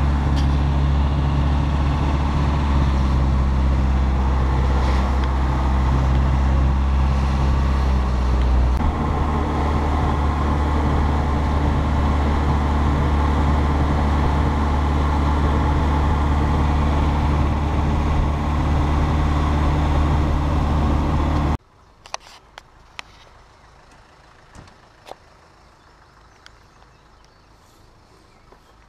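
Land Rover ambulance's diesel engine running steadily, heard from inside the cab while driving; the engine note shifts about nine seconds in. About three-quarters of the way through it cuts off suddenly to quiet outdoor air with a few faint clicks.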